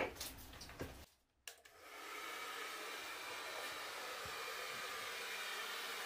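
Hair dryer blowing steadily: an even airy rush with a faint low hum, coming in after a brief dropout about a second and a half in.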